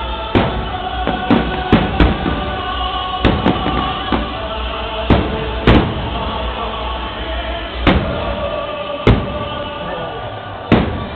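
Aerial fireworks bursting, about a dozen sharp bangs at irregular intervals, over loud music playing throughout.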